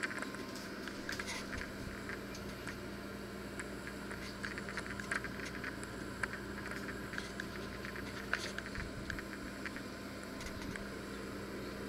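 Electric oven running with a steady hum, with many faint scattered clicks and crackles over it.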